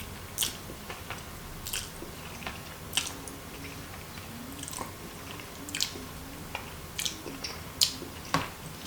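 Close-miked eating of noodles: irregular wet smacks and clicks of chewing and biting, a few each second.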